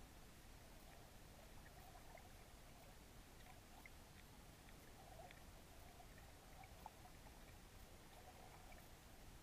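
Near silence from a camera recording underwater: a faint steady hiss with a few tiny, faint ticks scattered through it.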